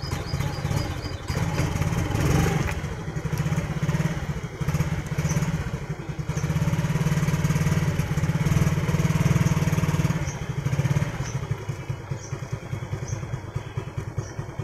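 Suzuki Smash single-cylinder four-stroke motorcycle engine running on the throttle, rising around two seconds in and again for a longer stretch in the middle, then dropping back to a lower, uneven idle about ten seconds in. This is an engine the owner says stalls unless it is warmed up for 10 to 15 minutes, even with a cleaned carburettor and air filter and a new spark plug.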